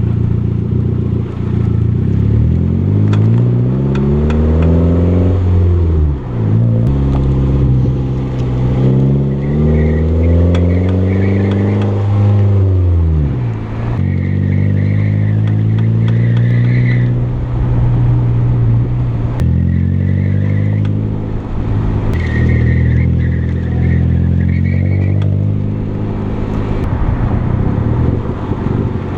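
Mazda 3 under way, its engine speeding up and easing off several times, with scattered clicks and knocks from a bad CV joint on the drive axle. A higher-pitched squeal comes and goes in short stretches through the middle.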